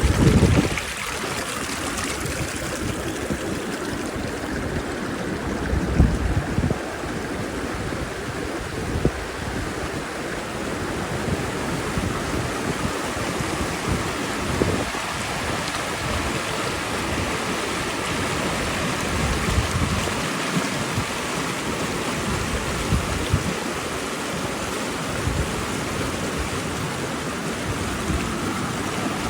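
Mountain river rushing steadily, an even wash of flowing water. A few brief low thumps break through, the strongest right at the start and about six seconds in.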